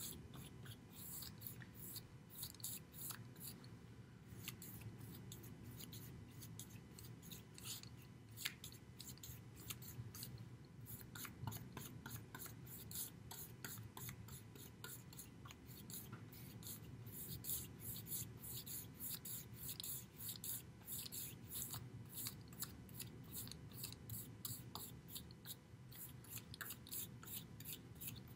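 A paintbrush stroking gesso primer across a masonite board: faint, quick, repeated brush strokes.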